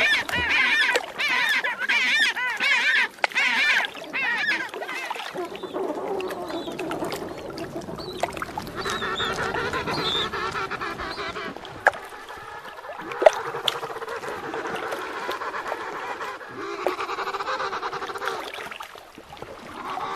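King penguin colony calling. Loud, warbling trumpet calls from nearby adults fill the first few seconds, then many overlapping calls from the crowd, with a sharp click about two-thirds of the way through.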